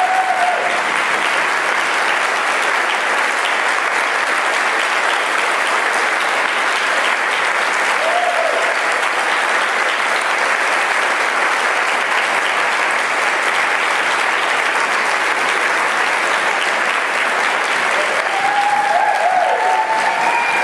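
A congregation applauding steadily and at length, with a few short voices calling out above the clapping near the start, about eight seconds in, and near the end.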